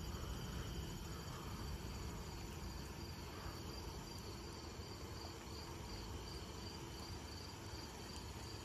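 Crickets chirping in an even rhythm, about three high chirps a second, over a low steady background rumble.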